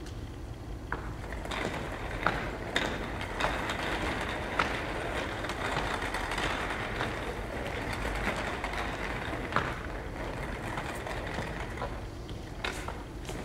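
Small plastic wheels of inflatable vinyl pull-along toy trains rolling and rattling across a wooden floor as they are pulled on strings, with sharp clicks of high-heeled footsteps. The rolling noise builds about a second and a half in and eases off after about ten seconds.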